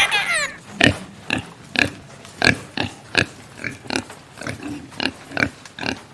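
Pig grunting: a run of short, sharp grunts, about two a second.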